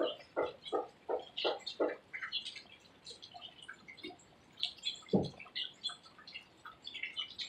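Birds chirping in short high notes. An evenly repeated series of lower notes, about three a second, runs through the first two seconds, and one dull thump comes about five seconds in.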